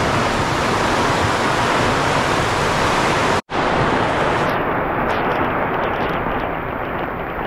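Heavy downpour of rain: a loud, dense, steady hiss that cuts out for an instant about halfway through.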